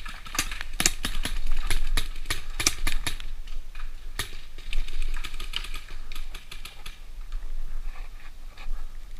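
Paintball markers firing in quick strings of sharp pops. The pops are thickest in the first three seconds and come as scattered shots after that.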